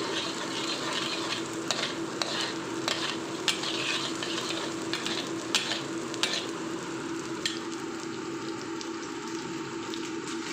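Sliced garlic and shallots sizzling as they sauté in hot oil, with a utensil clinking against the pan several times while they are stirred.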